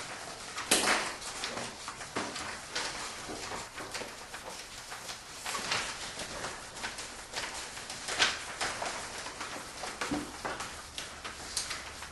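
Paper book pages being turned quickly by hand, a short rustling flip roughly once a second, with the loudest flips about a second in and near eight seconds.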